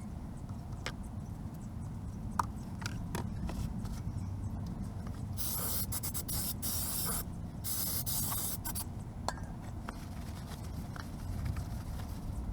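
Two bursts of spray hiss, the first about two seconds long and the second just over a second, with light clicks and knocks around them.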